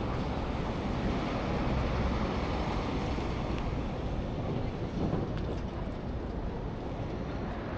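Steady city street noise: a low traffic rumble mixed with wind on the microphone.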